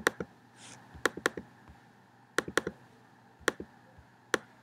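Sharp clicks of a computer mouse and keyboard, in ones and short runs of two or three with pauses between.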